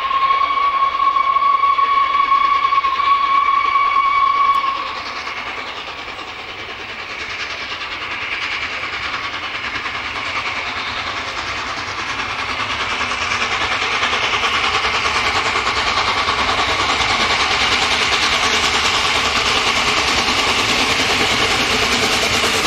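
Steam whistle from LNER Peppercorn A1 Pacific 60163 Tornado, one long single-pitched blast of about four and a half seconds. After that comes the working locomotive and its train, growing steadily louder as it approaches.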